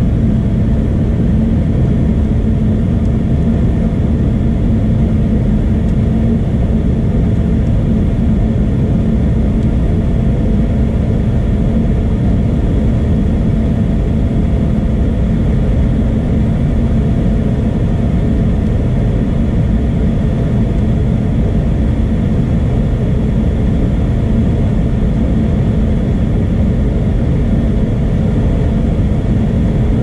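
Goodman gas furnace running at low fire, its burners and draft inducer motor making a steady low rumble with a constant hum.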